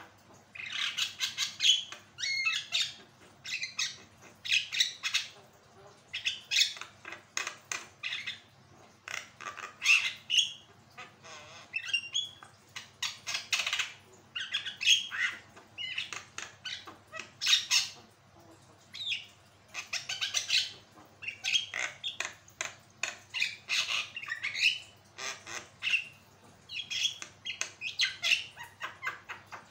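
Javan myna (jalak kebo) calling in full voice: bursts of harsh, rapid chattering and squawking notes, each burst about a second long with short pauses between.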